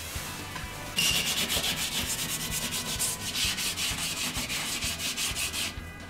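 Cloth wiped quickly back and forth over the plastic of a small refrigerator's door, an even rubbing at about six strokes a second. It starts about a second in and stops shortly before the end.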